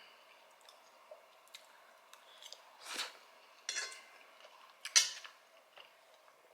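Cutlery clinking and scraping against dishware while eating: a handful of short, separate clicks and scrapes, the sharpest about five seconds in.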